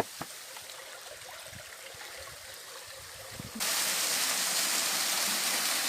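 A few faint clicks and low thuds, then about three and a half seconds in a steady rush of flowing water begins abruptly and runs on evenly.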